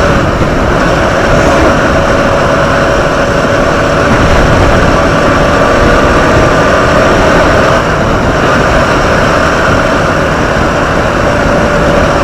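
Motorcycle running steadily at riding speed, its engine hum under a heavy, even rush of wind noise on the microphone.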